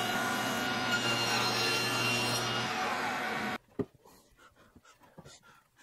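Table saw running and ripping a spruce board: a steady whine with cutting noise that cuts off suddenly about three and a half seconds in. Faint knocks of boards being handled follow.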